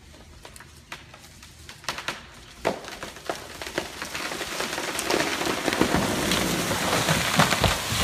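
A felled tree coming down: scattered sharp cracks of breaking wood grow into a rushing crash of snapping branches and foliage. It is loudest near the end, with heavy thuds as the trunk hits the ground.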